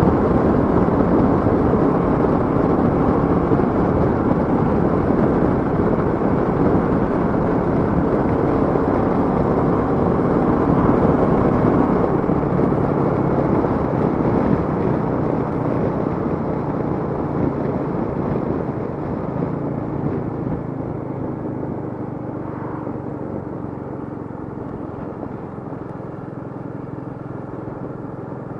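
Royal Enfield Meteor 350's single-cylinder engine running on the move under steady wind and road rush. The rush gradually fades through the second half, leaving the engine's steady note clearer.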